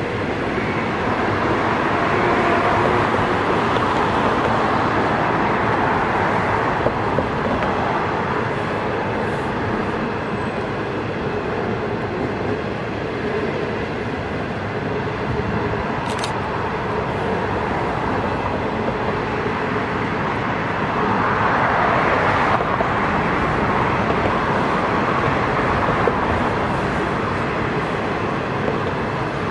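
Passenger coaches rolling past, their wheels on the rails making a steady rumble that swells twice. A brief sharp click comes about halfway through.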